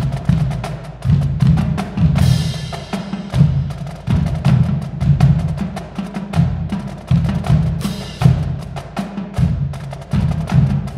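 Marching drumline playing a cadence: snare drums, tenor drums and bass drums in a fast, tight rhythm, with cymbal crashes about two seconds in and again about eight seconds in.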